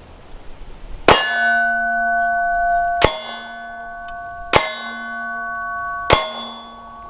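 Four pistol shots, spaced about one and a half to two seconds apart, each followed by a steel target ringing with a sustained metallic clang that carries on until the next shot.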